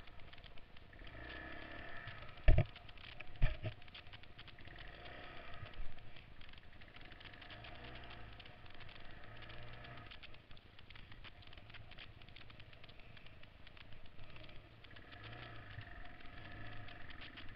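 Honda XL trail bike's single-cylinder four-stroke engine running at low revs, the note easing up and down, with the bike rattling over rough ground. There are two sharp knocks about a second apart, some two and a half seconds in.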